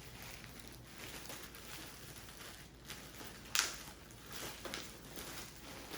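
Soft rustling of packaging being handled and opened, with one sharp click about three and a half seconds in.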